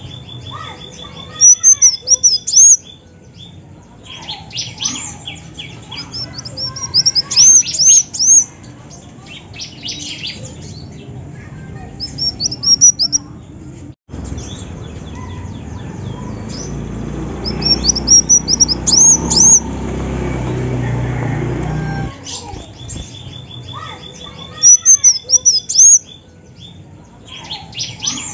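Female kolibri wulung (a sunbird) calling: loud bursts of quick, sharp, high chirps repeated every few seconds, some joined by a fast ticking trill just below them.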